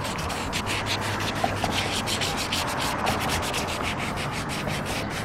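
Hand-held sheet of sandpaper rubbed in quick back-and-forth strokes over the painted edge of a van's brake light opening, rasping steadily as it loosens caked dirt.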